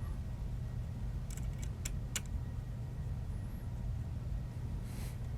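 Steady low hum with a few faint sharp clicks about one and a half to two seconds in, and a brief hiss near the end.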